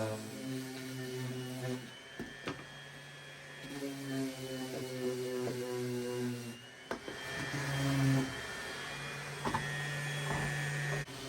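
Electric power sander running on wood, its motor pitch stepping up and down, with a few brief clicks and breaks.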